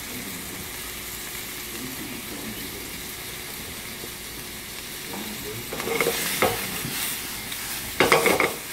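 Oysters sizzling in a hot frying pan over a gas flame. There are louder bursts of rattling and scraping about six seconds in and again near the end, when the pan is tossed.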